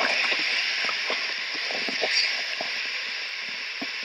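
Steady rushing hiss of a landscape waterfall, with faint scattered rustling and handling noises over it.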